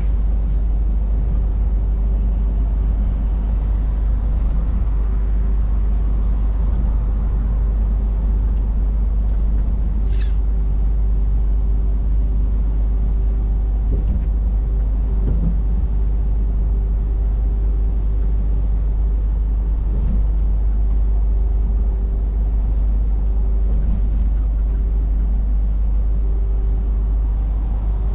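Scania S460 truck cruising at steady speed, heard from inside the cab: the 13-litre straight-six diesel running evenly with a deep steady rumble, road and tyre noise, and a faint constant hum. A brief click about ten seconds in.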